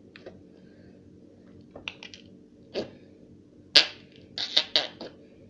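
Noise putty (fart slime) squished in its small plastic pot, giving a run of short squelching pops at irregular spacing, the loudest a little past halfway, with a quick cluster near the end.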